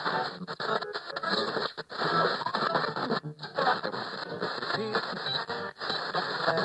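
Radio being tuned across the dial: snatches of station music flick past, broken by short dropouts and scratchy interference between stations.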